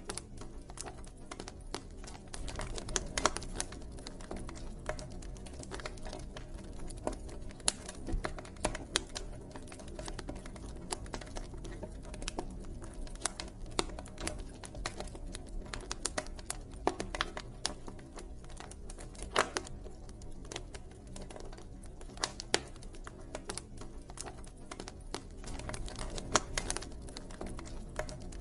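Wood fire burning steadily, with irregular sharp crackles and pops over a low rumble of flame.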